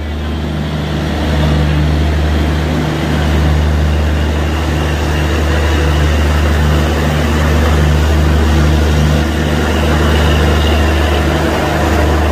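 Diesel generator sets in an Indian Railways luggage, brake and generator car running steadily: a loud, deep, even hum with a faint wavering beat in it midway.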